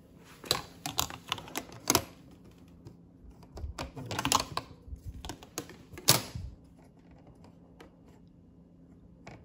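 Plastic headlight template clicking and tapping against a golf cart's plastic front cowl as it is handled and pressed into place: a quick run of sharp clicks in the first two seconds, another cluster around the middle, the loudest about six seconds in.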